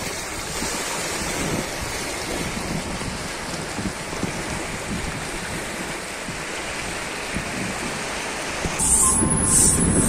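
Small waves lapping and washing over stones at the lake's edge, a steady churning water sound. Near the end it cuts abruptly to a louder, different sound with a thin, high steady whistle.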